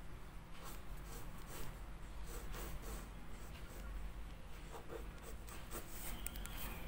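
Mechanical pencil lead scratching on paper in short, quick sketching strokes, over a faint steady low hum.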